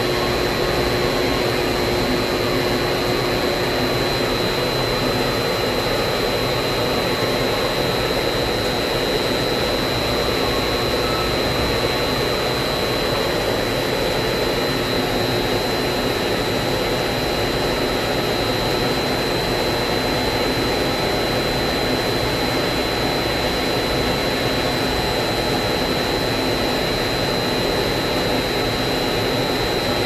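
Steady machinery noise from vacuum-system equipment, with a constant high whine and a lower hum, unchanging and with no clicks or valve strokes.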